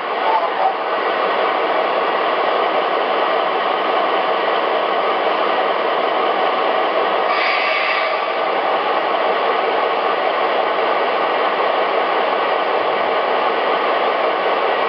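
Steady, hissy diesel idle from the ProtoSound 2.0 sound system of an MTH O-gauge AC6000CW model locomotive, played through its small onboard speaker, with a short burst of higher hiss about halfway through.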